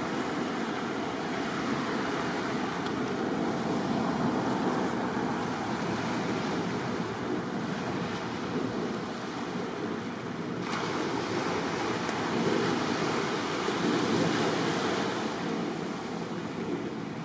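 Small waves lapping and breaking gently on a seaweed-covered shore: a steady wash that swells and eases a few times, with some wind on the microphone.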